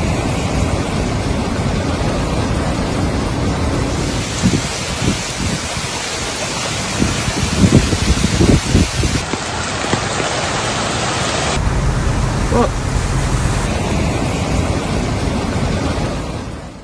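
Heavy rain and rushing floodwater: a loud, steady hiss of downpour that shifts abruptly a few times, with several louder low thumps in the middle.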